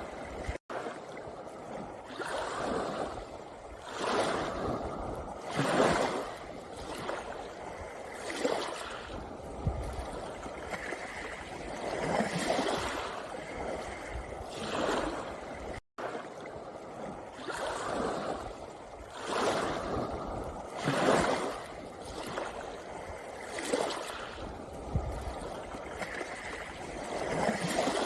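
Small sea waves washing in and out over a pebble beach, a new surge of water every second or two. The sound cuts out for an instant twice.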